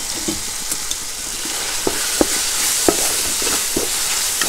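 Tomatoes and chilies sizzling in hot coconut oil in a wide metal pan, stirred with a wooden spatula that scrapes and knocks against the metal now and then. The sizzle grows a little louder about halfway through as the tomatoes fry down until soft.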